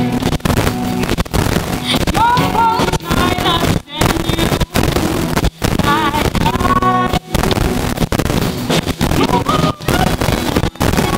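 Live rock band playing: a woman singing lead over electric guitars, drum kit and keyboard, with several brief sudden gaps in the sound.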